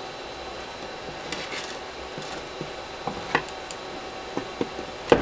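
Hand wire tool clicking and clacking as it works thin wire ends: a few irregular sharp clicks, the loudest near the end, over a faint steady hum.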